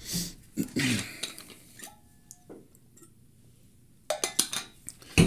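Clinks and knocks of a drink container being handled and drunk from. A short faint ringing tone comes about two seconds in, and a cluster of sharp clicks and knocks near the end, the last one the loudest.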